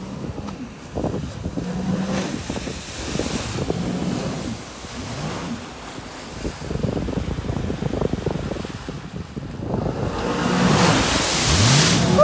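Wind buffeting the microphone and choppy lake water slapping against the craft, with the engine of a Sea-Doo GTX 300 Limited personal watercraft faintly heard as it runs past. The noise swells near the end.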